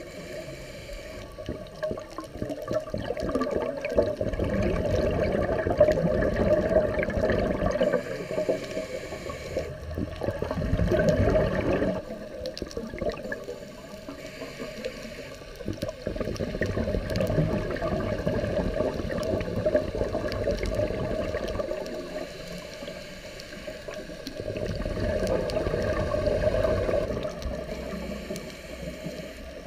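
Scuba diver breathing through a regulator, heard underwater: muffled surges of rushing exhaled bubbles lasting a few seconds each, with quieter gaps between them.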